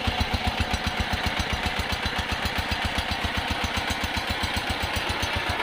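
Diesel engine driving an irrigation water pump, running steadily with an even beat of about ten pulses a second.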